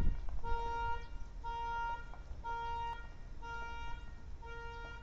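Vitovt electric truck's reversing beeper sounding about once a second, each beep a short steady tone, while the truck backs up. A low rumble runs underneath.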